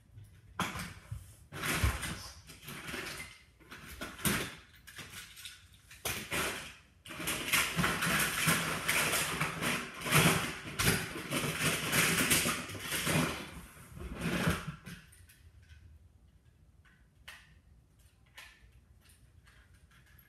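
Handling noise close to the microphone: loud, irregular rustling and knocking for about fifteen seconds, then a few faint clicks.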